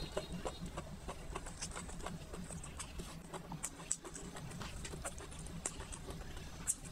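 Close-miked chewing of a mouthful of fried chicken: irregular small wet mouth clicks, with chopsticks tapping as food is picked from the plate.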